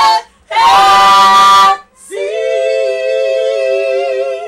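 Women's voices singing a gospel song. A short sung phrase ends on the word "blessings", then comes a long, steady held note.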